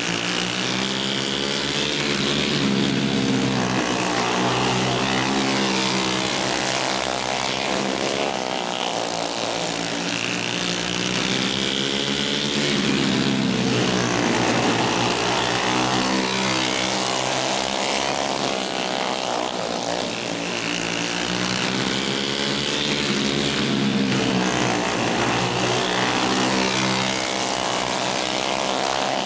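Alcohol-burning dirt-oval racing karts' small single-cylinder engines running flat out, the pitch rising and falling over and over, about every four to five seconds, as they accelerate and back off around the track.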